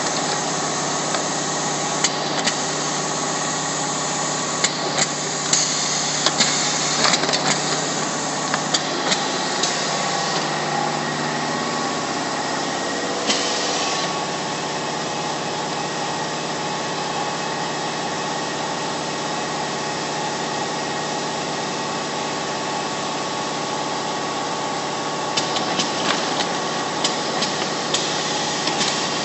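Shisha tobacco cartoning machine running as it packs small tobacco packs into a larger carton: a steady mechanical whir, with a fast, irregular clatter of clicks through roughly the first ten seconds and again near the end.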